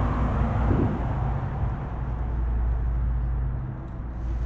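Road traffic on a road bridge: a passing vehicle's tyre noise fading over the first second or two, over a steady low rumble.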